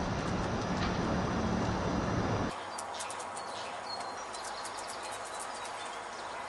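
A steady rushing outdoor noise with a low hum cuts off sharply about two and a half seconds in. It gives way to a quieter open-country background in which small birds chirp in quick, high calls for a few seconds.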